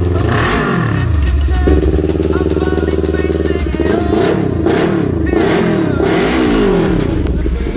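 Kawasaki Ninja 400's parallel-twin engine running through a full-system aftermarket exhaust with a titanium finish, being revved. The revs drop, step up and hold, then rise and fall in several quick throttle blips before settling back to idle near the end.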